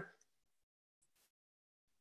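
Near silence, with a couple of very faint ticks about a second in.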